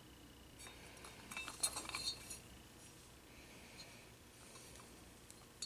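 Hands handling a dome camera's mounting base and its rubber gasket: a quick cluster of light clicks and clinks about a second and a half in, then a few faint ticks.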